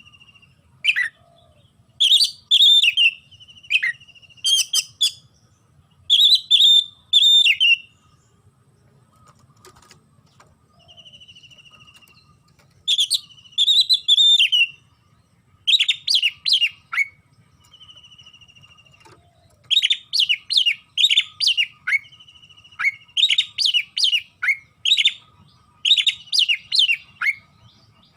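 Oriental magpie-robin (kacer) singing loudly, in phrases of a second or two made of sharp, rasping whistled notes, separated by short pauses. Quieter fast buzzy trills fill the gaps.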